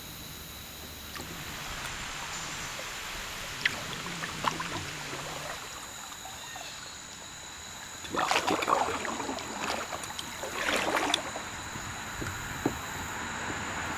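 Kayak paddle strokes splashing and dripping in the river over a steady wash of flowing water, with two louder splashy strokes about eight and ten and a half seconds in.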